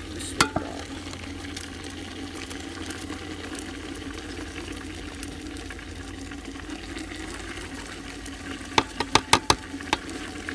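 A pot of saag boiling on the fire with a steady bubbling hiss. A sharp knock just after the start, then near the end a quick run of about six sharp knocks as the plastic blender jar is tapped against the aluminium pot's rim to empty out the ground green chillies.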